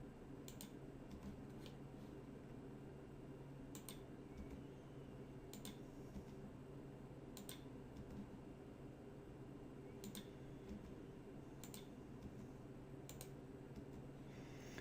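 Faint computer mouse clicks, a dozen or so scattered irregularly a second or two apart, over a low steady hum.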